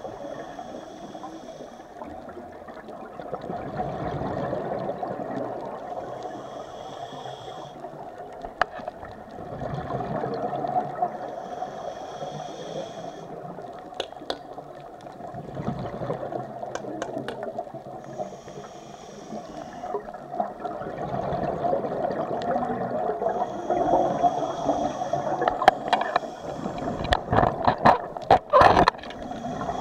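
Scuba diver breathing through a regulator, heard underwater: a short hiss with each inhale about every six seconds, and exhaled bubbles gurgling in between. A run of sharp clicks and knocks near the end.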